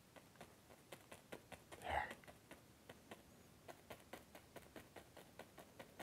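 Fan brush dabbing oil paint onto a stretched canvas: faint, irregular light taps of bristles on canvas, about three or four a second, as leaves are tapped on. One brief louder sound about two seconds in.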